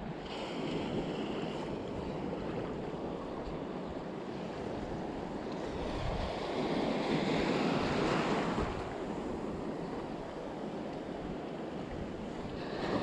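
Sea waves washing and surging around a wading angler, with wind buffeting the microphone as a steady low rumble. The wash swells louder about six to nine seconds in.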